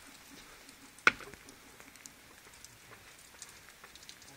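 Faint scattered clicks and taps of a homemade potato gun being handled and readied, with one sharp click about a second in.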